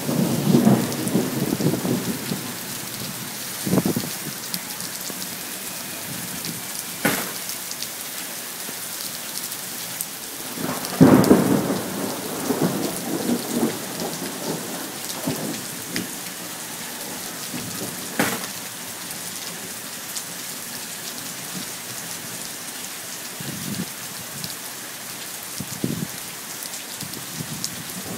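Thunderstorm: steady rain falling, with thunder breaking several times over it, a few sharp cracks and rolling rumbles, the loudest a long rumble about eleven seconds in.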